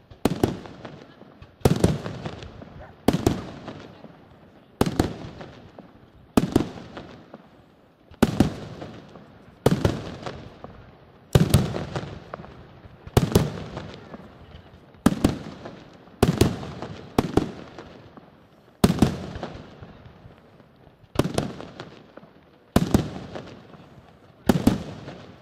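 Aerial firework shells bursting one after another, about sixteen sharp bangs, one every one and a half to two seconds, each followed by a fading echo.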